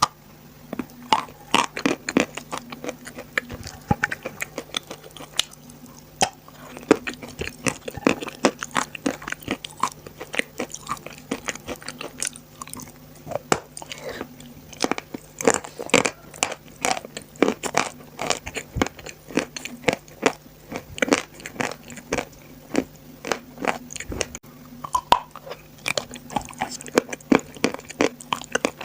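Close-miked biting and chewing of dry edible chalk: a dense, irregular run of sharp crunches and crackles, several a second.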